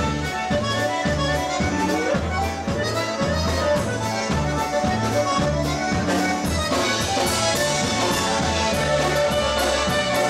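Live polka band playing an instrumental passage with no singing: a concertina leads over clarinet and trumpet, with electric bass marking a steady oom-pah beat.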